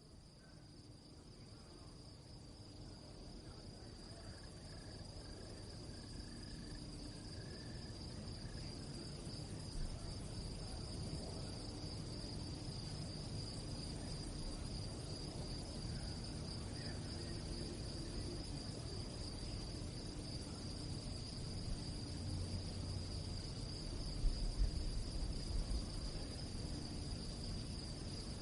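Crickets chirping in a continuous, finely pulsing high trill, fading in over the first few seconds, over a low rumble.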